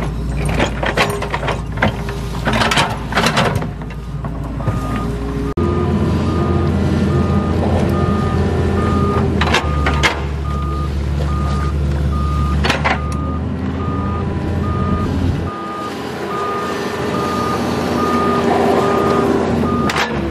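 Doosan wheeled excavator with its diesel engine running. For the first few seconds the bucket digs into soil with clanks and knocks. Then the machine's travel alarm beeps evenly and repeatedly as it moves, over the engine drone, and the engine note drops near the end.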